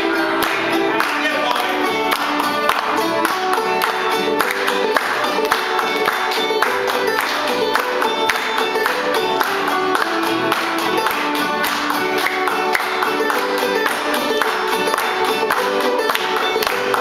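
Banjo played clawhammer style, a steady stream of quick plucked notes, with an acoustic guitar accompanying it in an old-time tune.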